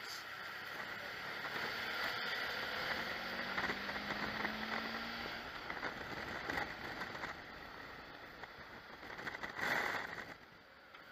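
Wind and road noise rushing over a camera mounted on a moving motorcycle, with a brief steady engine note a few seconds in and a louder gust near the end.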